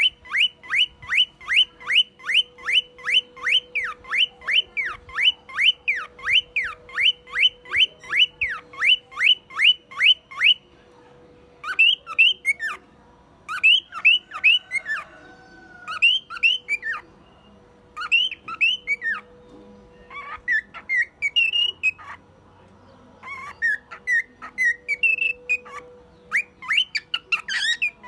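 Male cockatiel whistling. For about the first ten seconds it repeats a rising-and-falling whistle about three times a second, its imitation of a car alarm, then breaks into shorter groups of whistled phrases with brief pauses between them.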